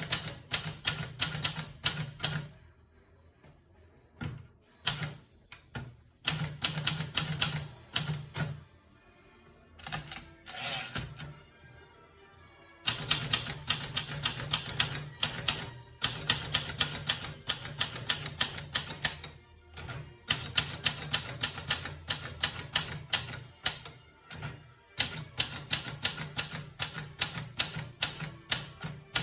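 Olivetti Lettera 32 portable manual typewriter being typed on: quick runs of sharp key strikes, several a second, broken by short pauses.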